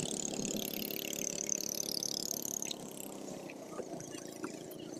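Small boat engine running steadily, with a high hiss that fades before halfway and a few light knocks in the second half.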